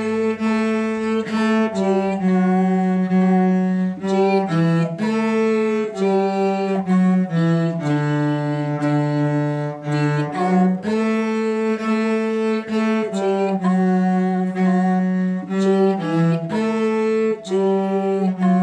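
Solo cello bowing a slow beginner melody in D major, one separate note after another, each about a second long, with a short break in the sound between bow strokes.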